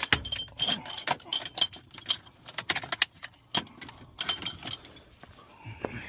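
Metal hand tools clinking and jangling against each other: sockets and a socket extension being sorted through. The sharp clinks come in quick irregular clusters, each ringing briefly.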